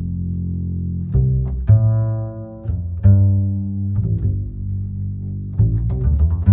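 Background music of low, sustained notes, with a new note starting every second or so.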